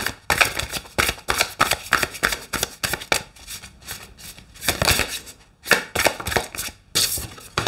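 A tarot deck being shuffled by hand: a quick run of soft card clicks and slaps as one half of the deck is worked through the other, in several spells with short pauses.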